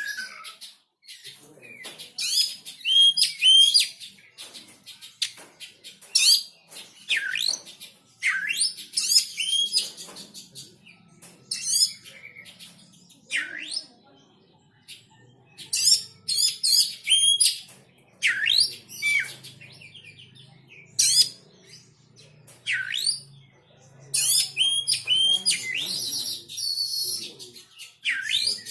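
A poci songbird singing in short, rapid phrases of high chirps and trills, each phrase quick and bright, with pauses between them. This is the kind of song played as 'therapy' to coax a bird that has stopped singing.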